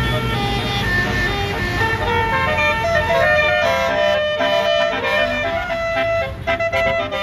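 Bus telolet horn (basuri air horn) playing a multi-note melody, its notes stepping up and down over the low rumble of the bus's engine.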